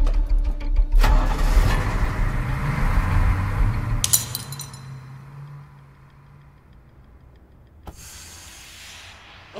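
School bus engine running with a heavy low rumble, which drops away suddenly about four seconds in. Near the end a sharp click is followed by a steady hiss as a smoke grenade starts to pour out smoke.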